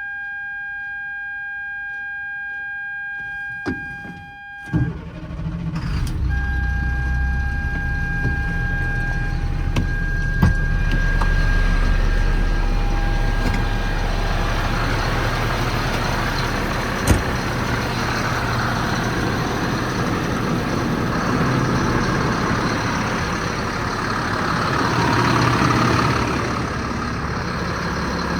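A steady dashboard warning buzzer, then about five seconds in the Caterpillar C7 diesel of a 2007 Ford F-750 cranks and starts and settles into an idle. The buzzer keeps sounding in broken stretches over the idling engine and stops about fifteen seconds in; there is one sharp click a couple of seconds later.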